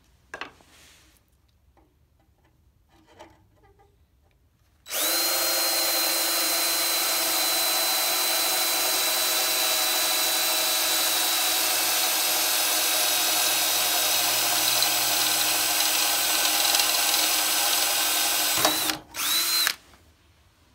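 DeWalt cordless drill boring a hole through the golf cart's sheet-metal light bracket: after a few seconds of faint handling noise it runs steadily at one speed with a high whine for about fourteen seconds, stops suddenly, then gives one short burst.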